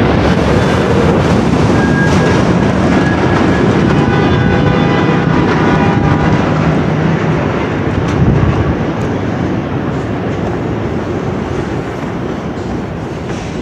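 An R62A subway car running on the rails, heard from inside: a steady, loud rumble with wheel clatter, and a faint hum of several steady tones about four to seven seconds in. A heavier bump comes around eight seconds in, then the noise gradually eases off.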